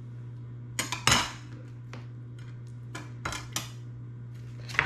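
Kitchen knife knocking and clattering on a cutting board while slicing onion: a handful of irregular sharp clicks, the loudest about a second in and another near the end, over a steady low hum.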